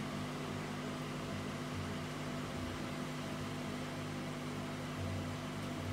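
Steady low hum with a constant hiss, a few even low tones held throughout: the room's background hum.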